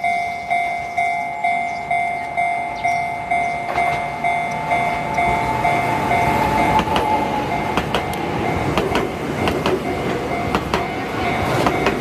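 Japanese level-crossing warning bell ringing, about two strokes a second. From about four seconds in, an Enoden electric train passes over the crossing with a rumble and scattered wheel clacks over the rail joints. The bell stands out again near the end.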